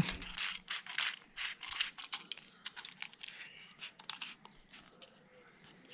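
Plastic screw-on battery cap being twisted onto the end of a GP-Pointer pinpointer: a run of small irregular scrapes and clicks from the threads and gripping hands, thinning out after about two seconds.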